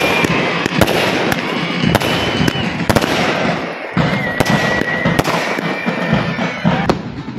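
Aerial fireworks going off in a rapid, irregular string of sharp bangs and crackles, with music playing underneath.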